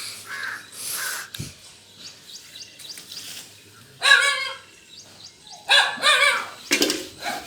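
Dogs barking in short bursts, about four seconds in and again twice near the end.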